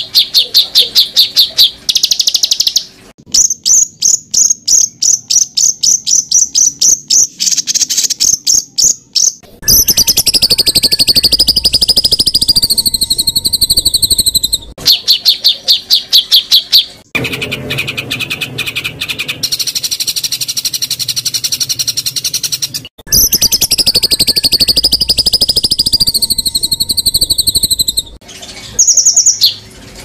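Songbird song spliced together as a masteran training track: trains of rapid, sharp repeated notes ('tembakan' bursts) alternate with stretches of high, wavering warbling, the recording switching abruptly every few seconds.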